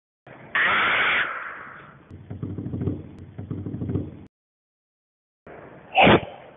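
A string of cartoon sound effects cut one after another with dead silence between them. First a loud burst of noise fades away over about a second, then comes a quick run of soft low thumps, and near the end a single sharp, loud hit.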